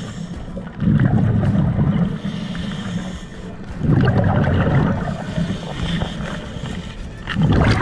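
A scuba diver breathing through a regulator underwater. Three loud, low rumbles of exhaled bubbles come about three and a half seconds apart, with a softer hiss of inhaling between them.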